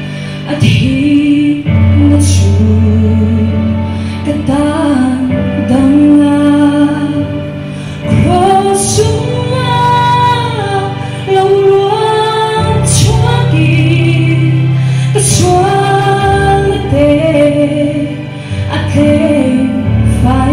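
Mixed choir of men and women singing in parts, over long held low notes that change in steps.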